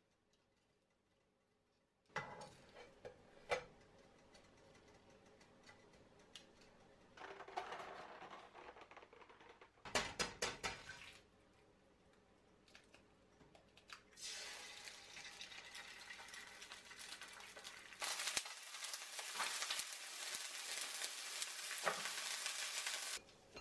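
Cooking in a nonstick frying pan: tongs knock and scrape against the pan, a quick run of sharp taps comes about ten seconds in, then an egg and mixed vegetables sizzle steadily in hot oil, louder over the last several seconds.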